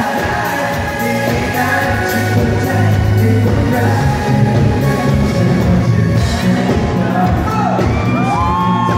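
Live pop ballad from a band with a strong bass line and a lead singer holding long, sliding notes near the end.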